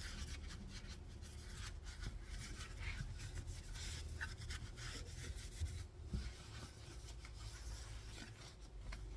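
A cloth wiping and rubbing over the motorcycle's dusty exhaust pipes: quiet, irregular scratchy rubbing with small ticks.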